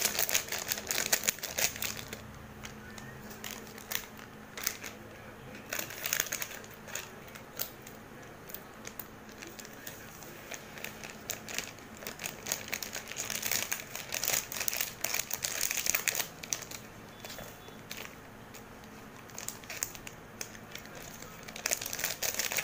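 Plastic chocolate-drink sachets crinkling as they are handled and cut open with scissors, in irregular bursts with quieter pauses between.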